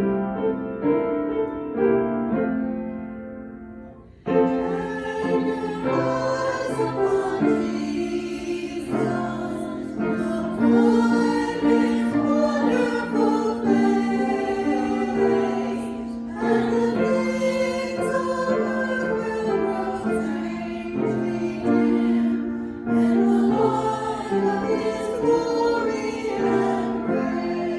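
Worship music: piano playing, joined about four seconds in by a fuller sound with singing voices, as in a hymn or praise song.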